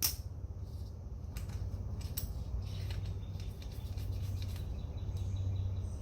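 A few small metallic clicks as the oil filter cover bolts are handled and fitted to a Kawasaki KX450F's engine case, over a steady low hum.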